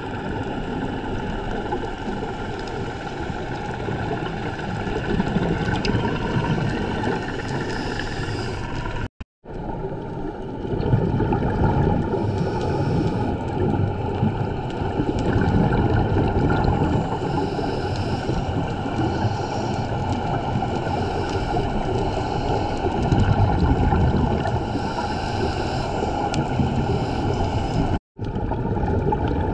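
Muffled underwater sound through a GoPro's housing: a steady rumble and bubbling from scuba divers' regulator breathing and exhaled bubbles, swelling and easing every few seconds. The sound cuts out briefly about 9 seconds in and again near the end.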